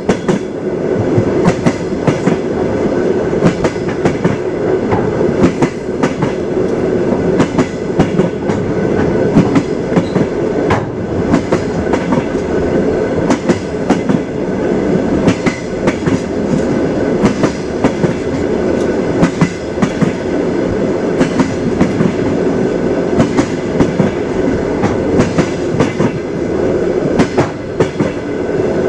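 Train wheels knocking on the rails as the train rolls along: a steady rumbling clatter with many sharp clicks throughout.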